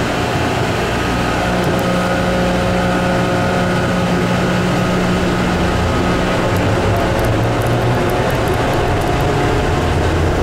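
Denver International Airport's automated people-mover train running through its tunnel, heard from inside the car: a steady low rumbling hum with a few steady whining tones over it.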